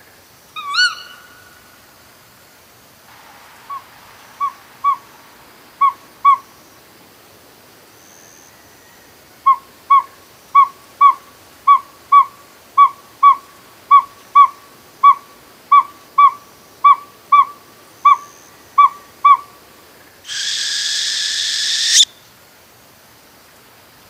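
Owl calls: a short rising call about a second in, then a few short clear hoots, then an even series of about twenty short hoots at about two a second, ending with a loud, harsh hissing screech that lasts about two seconds.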